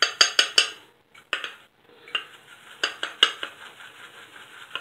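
Wooden-handled shaving brush whisking shaving soap into lather in a small metal bowl, knocking and clinking against the bowl's sides. A quick run of strokes opens it, then a short pause and more scattered strokes.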